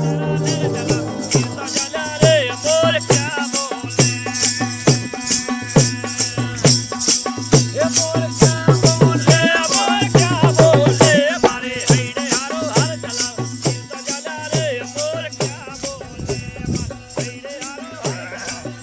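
Background music: a steady shaker rhythm over a low beat about once a second, with a wavering melody line on top.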